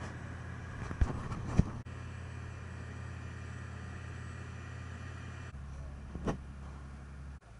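Motorboat running at speed: a steady low engine drone under rushing wake and wind noise. Sharp knocks come about a second in, half a second later, and again near the end.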